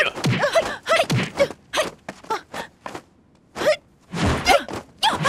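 A rapid series of short shouts, grunts and gasps from people fighting, mixed with sharp hits, with a brief lull about three seconds in.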